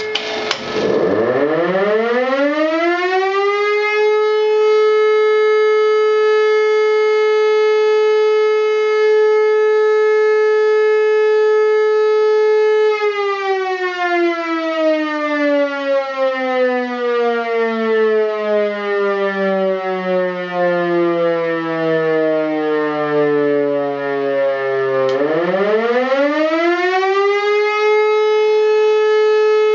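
Helin E57 electromechanical civil-defence siren, switched by a TeleNorma cycle timer, sounding the German fire-alarm signal. It spins up to a steady wail and holds it for about nine seconds. Then it is cut off and winds down over about twelve seconds to a low growl, and near the end it spins up and holds again: the on–off timed tones of the 'Feuer' sequence.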